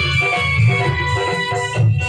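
Loud dance music: a drum beat pulsing in the bass under a held melody line.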